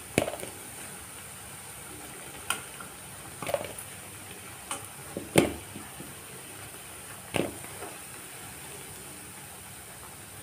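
Bread manchurian balls deep-frying in hot oil in a kadhai, a steady sizzle. A steel spoon knocks against the pan about six times as the fried balls are lifted out.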